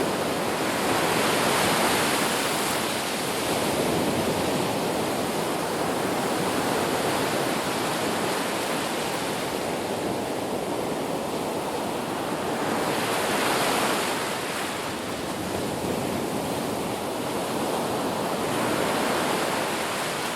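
Ocean waves breaking and washing up a beach in a steady surf, with swells building and falling back every few seconds, the strongest about a second in, midway and near the end.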